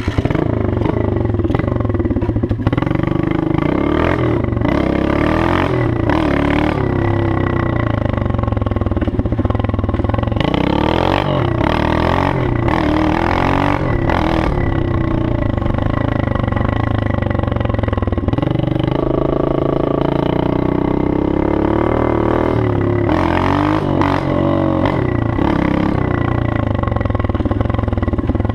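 110cc pit bike's Honda-type single-cylinder engine with a 24 mm carburettor and a gutted exhaust, riding along and revving. Its pitch rises and drops back again and again as it accelerates, changes gear and slows.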